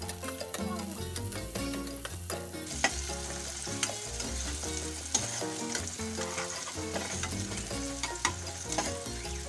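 Sliced onions and garlic sizzling as they sauté in a metal pot, stirred with a metal spoon that clinks and scrapes against the pot now and then.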